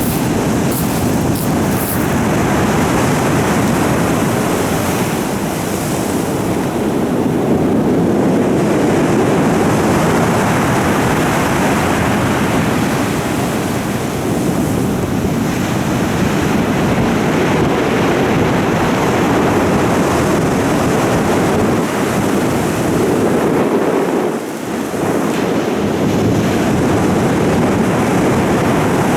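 Heavy storm surf, a continuous rush of breaking waves that swells and eases every few seconds, with wind buffeting the microphone.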